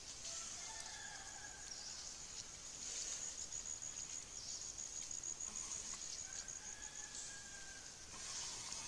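Insects shrilling, high and steady, turning into a rapid even pulsing trill through the middle. Faint thin gliding calls come in near the start and again near the end.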